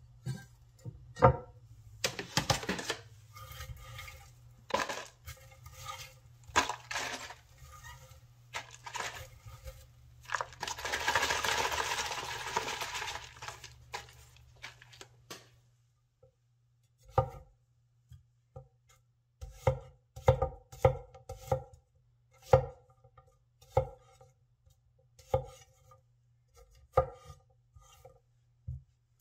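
Chinese vegetable cleaver (Winco KC-401) chopping broccoli stems on a wooden cutting board, sharp irregular chops through the second half. Before that come scattered knocks of the cleaver and broccoli being handled on the board, and a few seconds of rustling as chopped florets are scooped into a plastic tub.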